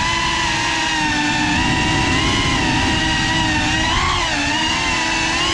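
GEPRC CineLog 35 cinewhoop's motors and propellers whining, the pitch holding steady and then dipping and rising with the throttle from about four seconds in, over a rough rushing noise.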